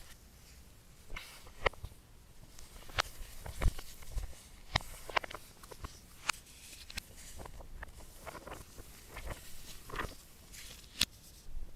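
Irregular sharp clicks and light taps of an iPad Pro Magic Keyboard and its packaging being handled and unboxed, some louder knocks among softer ones.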